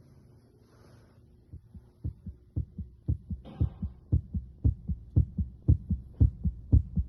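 Human heart sounds heard through a stethoscope at the mitral focus: a regular lub-dub, each beat a pair of low thumps, about two beats a second, starting about two seconds in. There is a brief scratchy rustle near the middle.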